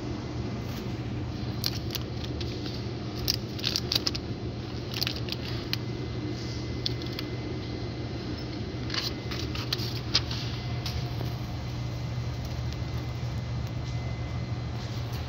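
Supermarket ambience: a steady low hum with scattered light clinks and rattles, bunched a few seconds in and again near the middle.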